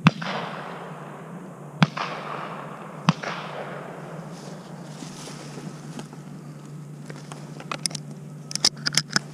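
Three shotgun blasts, the second about two seconds after the first and the third a second and a bit later, each with a long rolling echo. Near the end, a quick run of clicks as shells are pushed into the shotgun's loading port.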